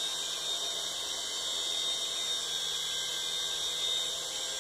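Toy remote-control helicopter's small electric motor and rotor whining steadily at a high pitch as it hovers just above the floor.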